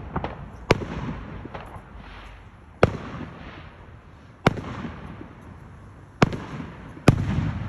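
Fireworks exploding: five loud, sharp bangs about a second and a half apart, each followed by a fading rolling echo, with a few fainter pops in between.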